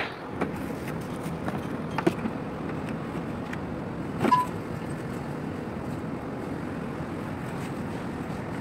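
Steady low rumble of rig deck machinery, with a few clicks and knocks from handling a self-contained breathing apparatus case and harness; the loudest is a sharp click about four seconds in.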